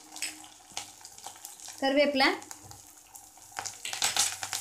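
Oil sizzling and crackling in an aluminium kadai as a mustard seed and urad dal tempering fries, with green chilli and ginger going in. The crackling grows denser near the end, and a brief voice is heard about two seconds in.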